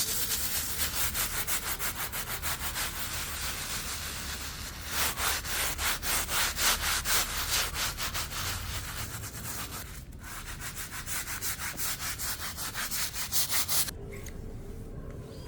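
Rapid rhythmic scraping strokes, about three a second, broken once briefly about ten seconds in, then stopping near the end.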